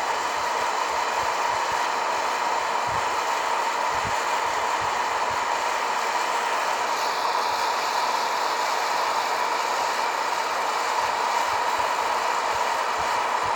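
Hot-air coffee roaster running: its fan blows a steady whir with a hum through the chamber, tumbling the beans. The beans are shedding their chaff.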